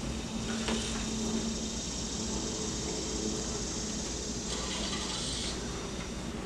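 Quiet room tone: a steady hiss and low hum, with a faint click a little under a second in and a short stretch of sharper hiss about five seconds in.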